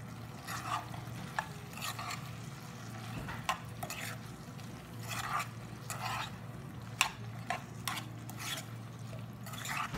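A spoon stirring fried chicken pieces through thick sauce in a non-stick pot: irregular wet scraping strokes with occasional sharp clicks of the spoon against the pan. A faint steady low hum runs underneath.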